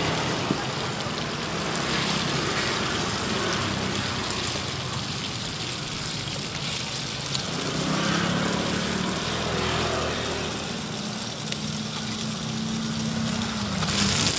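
Motorbike engines running in the street traffic close by, with a hum that swells twice, over the steady hiss of oil frying in a wok. The sizzling grows louder right at the end.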